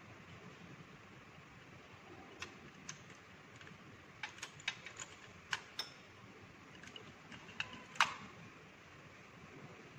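About a dozen light glass clicks and clinks as laboratory glassware (test tubes, funnel) is handled at a metal test-tube rack. They start about two seconds in and come irregularly, and the loudest clink, about eight seconds in, rings briefly.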